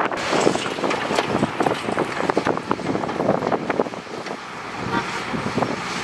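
Heavy construction equipment working: a dense, irregular clatter of knocks and rattles over a noisy background.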